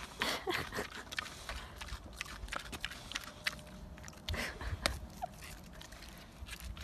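A curly-coated pig making irregular short clicking and smacking sounds with its mouth, a few of them louder, about a quarter second in and again around four and a half seconds in.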